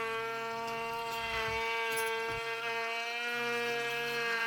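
Power tool motor running with a steady high whine while shaping a bead profile into wood.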